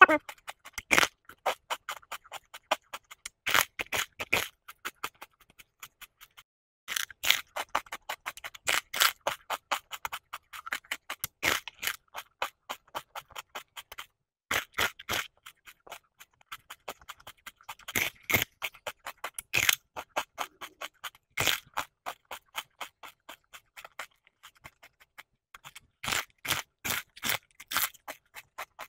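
Raw red cabbage leaves crunching as they are bitten and chewed: bursts of crisp crackling separated by short pauses.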